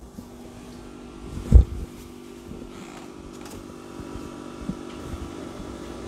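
Top-freezer refrigerator running with a steady, multi-toned mechanical hum. A single dull thump about one and a half seconds in is the loudest sound, with a faint tick near the end.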